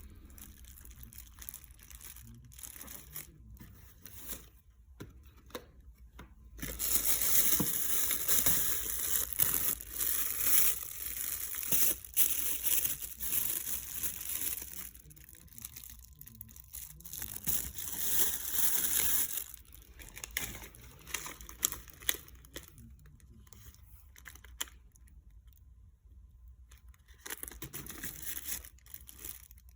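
Rustling, crinkling handling noise with tearing-like scrapes, loudest in a long stretch from about seven to nineteen seconds in, then fainter intermittent rustles.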